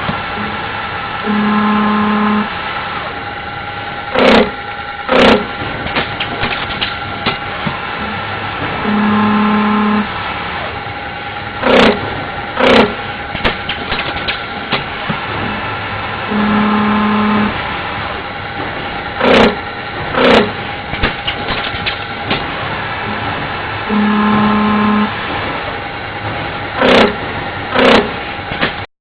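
CNC polygon lathe running an automatic cycle over a steady machine hum and whine. The cycle repeats about every seven and a half seconds, four times: a hum about a second long, then two sharp clanks about a second apart.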